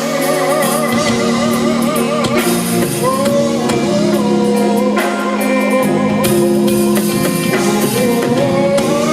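A live band rehearsing a song, with guitar and drum kit under a melody line that wavers with vibrato.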